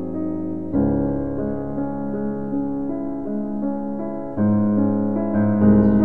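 Slow solo piano music, sustained chords with a new chord struck about a second in, another past four seconds, and a louder one near the end.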